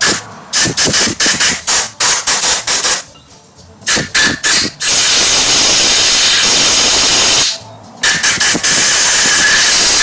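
Compressed-air blow gun blasting into a threaded bolt hole to dry the washed threads: a rapid string of short blasts for about three seconds, then after a brief pause more short blasts leading into two long, steady hisses of air.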